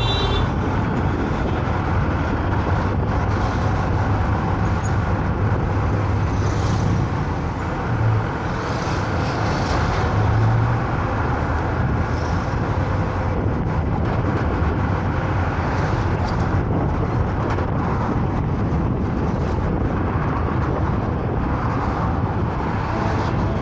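Car driving on a road: steady tyre and road noise with a low engine hum, swelling briefly about eight and ten seconds in.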